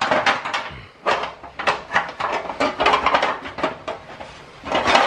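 Metal wiper linkage rods clattering and scraping against the sheet-steel windscreen frame of a Toyota Land Cruiser as the wiper mechanism is pulled out through the frame: a run of quick metallic clicks and rattles, pausing briefly near the end before another cluster.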